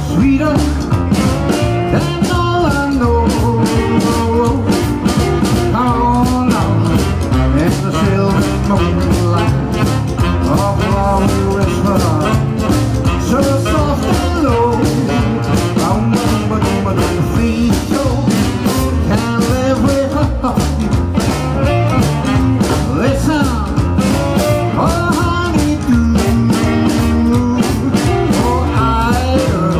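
A live rock and roll band playing with electric guitar, upright double bass and drums at a steady beat.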